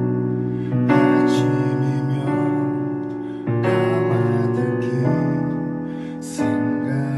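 Music: piano playing slow ballad chords, changing about every second and a half, with no singing.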